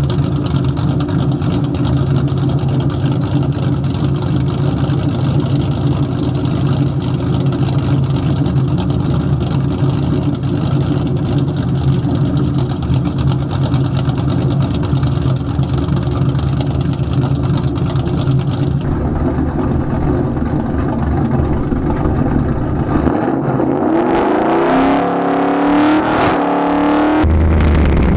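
Cammed Ford 4.6L 2V V8 with long tube headers, an H-pipe and straight pipes, idling steadily for most of the time. Near the end it is revved, its pitch rising and falling several times.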